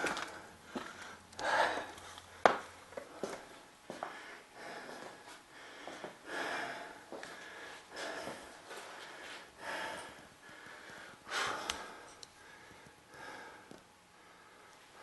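Close, irregular footsteps and breathing of the person carrying the camera, with occasional small knocks.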